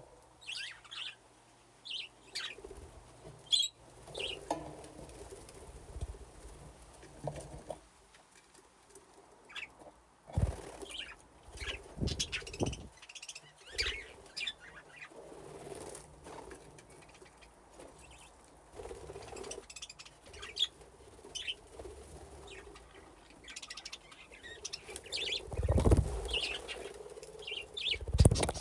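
Budgerigars chirping in short bursts and fluttering their wings, with several heavier wing flaps or thuds, loudest about ten seconds in and twice near the end.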